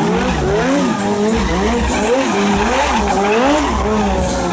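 Sport motorcycle engine revving up and down about twice a second during stunt riding, with the rear tyre skidding on the road.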